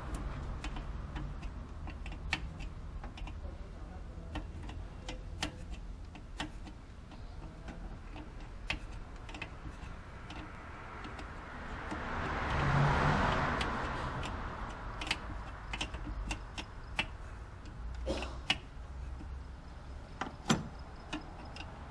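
Scattered metallic clicks and taps of a wrench and hands working the brake line fittings on a master cylinder, over a low steady hum. About halfway through, a whoosh swells up and fades away.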